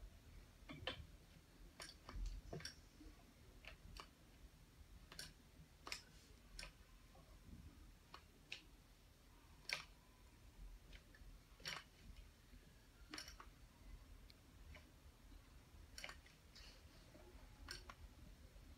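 Faint, irregular small clicks and ticks of a circular sock machine's metal latch needles being handled by hand, about one every second or so.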